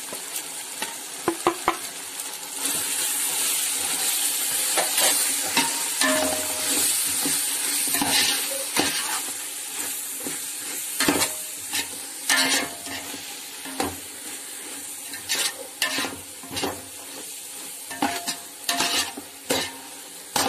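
Onions and freshly added spice powders frying in hot oil in a metal pot, sizzling steadily and louder from about three seconds in, while a ladle stirs the masala with repeated scrapes and clinks against the pot.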